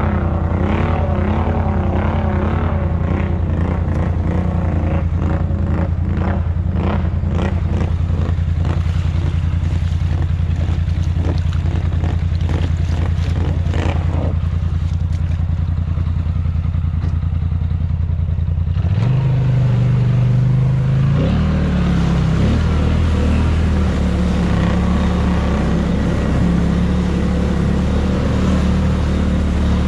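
ATV engine running steadily under load, with repeated knocks and clatter through the first half. A little past halfway the engine note changes abruptly, then it revs up briefly and settles into steady running again.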